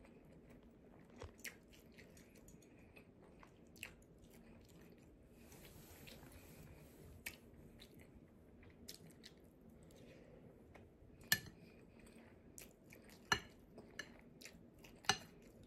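Quiet chewing of fried rice, with scattered sharp clicks of a metal spoon scooping against a glass bowl; three louder clicks come in the second half.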